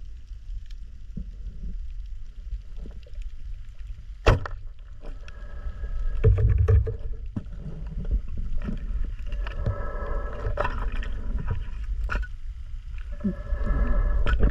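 Underwater sound of a night spearfishing dive, heard through the camera: a constant low rumble of water with scattered ticks and knocks. One sharp knock comes about four seconds in, and the water noise grows louder near the end.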